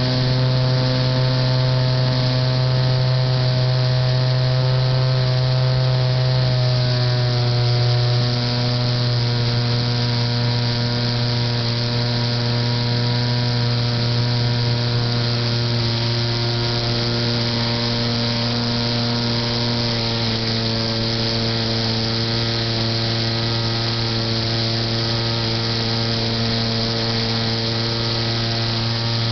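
Motor and propeller of a Titan J3 radio-controlled model airplane heard from its onboard camera: a steady droning hum with many overtones, stepping slightly lower in pitch about seven to eight seconds in, over a constant hiss.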